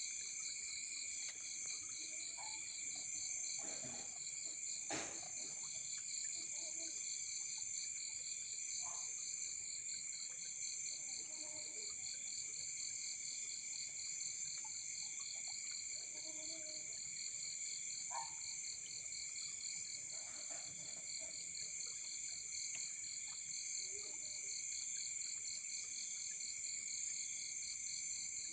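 A night-time chorus of forest insects, crickets among them: a steady, shrill trilling, one layer pulsing rapidly. A few faint, short, lower calls, frog-like, come through now and then, and there is one sharp click about five seconds in.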